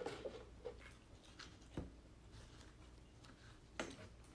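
A few faint clicks and taps of a drink can and plastic food tubs being handled on a table during a meal, with a sharper click about two seconds in and another near the end.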